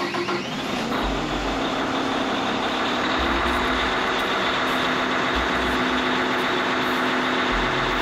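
A motorcoach's diesel engine running steadily at idle just after start-up, a loud even drone with a step up in pitch about three seconds in.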